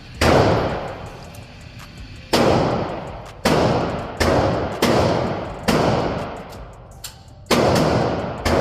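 Gunshots at a shooting range, about eight shots fired at uneven intervals, each loud crack followed by an echoing tail that dies away over about a second.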